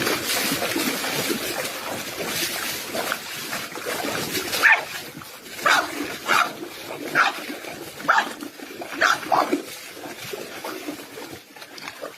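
A dog giving a series of short, high barks, about one a second, each dropping in pitch, over background noise.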